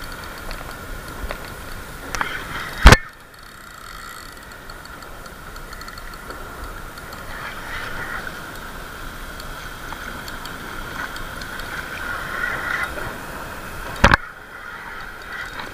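Spinning reel being cranked to retrieve the line, a steady whir from its gears, with two sharp clicks, about three seconds in and near the end.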